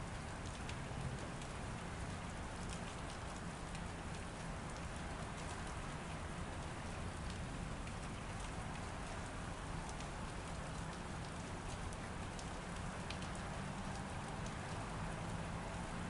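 Steady rain with many small, sharp drop ticks scattered through it.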